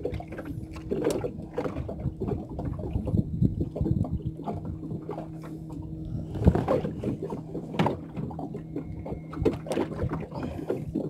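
Knocks and handling noises as a hooked fish is swung in against a small boat's side and held for unhooking, over water lapping at the hull and a steady low hum.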